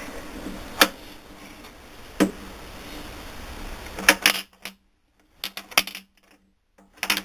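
Sharp metallic clicks and clinks as the steel parts of a South Bend 9A lathe headstock are handled: single clicks about one and two seconds in, a quick cluster around four seconds, and a few more near the end.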